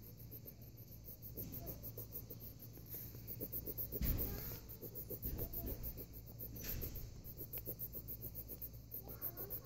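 Colored pencil shading back and forth on sketchbook paper: faint, quick scratchy strokes. A rapid, evenly repeating high-pitched pulsing sounds behind it.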